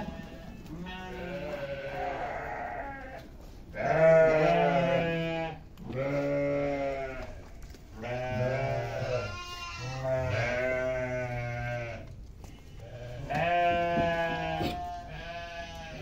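Goats bleating repeatedly in a pen where a nanny goat is held for her newborn kids to suckle: about five loud, long calls of a second or more each, with fainter bleats in between.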